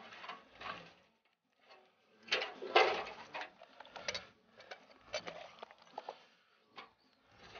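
Hands laying perch on a leaf-lined wire grate in a small steel box smoker: irregular rustling, scraping and light metal clatter. The loudest stretch is about two to three seconds in, with sharper clicks after it.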